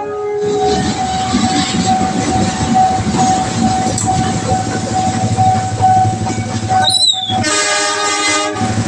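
Train passing over a railway level crossing with a dense rolling rumble and rattle, while the crossing's warning alarm holds a steady tone. Near the end the sound cuts out briefly and a short horn blast follows.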